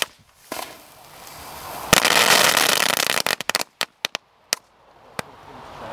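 Crackling Whip double firecracker string at its finale: a rising hiss, then a sharp bang about two seconds in and a second and a half of dense crackling as the head goes off, followed by a few scattered single bangs.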